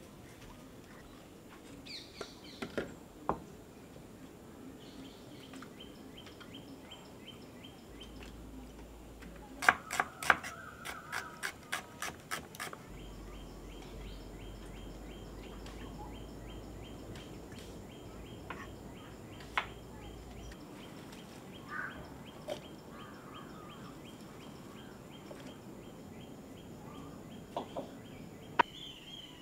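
Quiet outdoor ambience with bird calls and a steady high chirp pulsing evenly, broken about ten seconds in by a quick run of sharp clicks.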